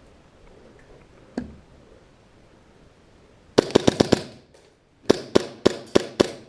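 Airsoft gun firing two quick strings of sharp shots, five in rapid succession then six more at a slightly slower, even pace, after a single click.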